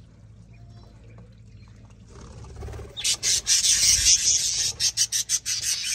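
Budgerigars in an aviary chattering and squawking: a dense, raspy, high-pitched chatter that starts about three seconds in after a quieter opening.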